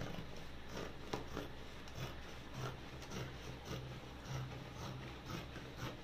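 Plastic sheet rustling and crackling as it is handled and smoothed by hand, in soft scattered crackles.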